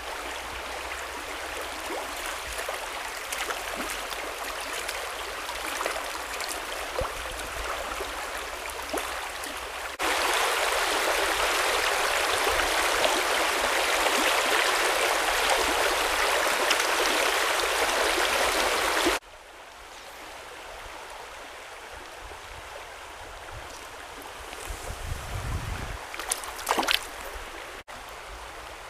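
Small stream flowing over a fallen branch and snags, a steady rushing and gurgling of water. It gets louder about a third of the way in and drops back quieter about two-thirds through. Near the end there is a low rumble and a few knocks.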